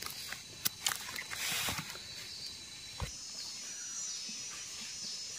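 Dry leaf litter crackling and rustling as wild mushrooms are dug out of the forest floor by hand, with a louder scrape about a second and a half in and a sharp click near three seconds. After that comes a faint, steady high-pitched tone with short falling whistles repeating about once a second.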